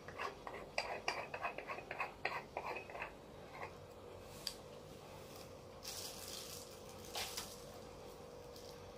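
Quick run of hard clicks and clinks of plastic and metal parts as an LED ring light is handled and fitted around a stereo microscope's objective, followed by two short rustles of plastic packaging in the second half.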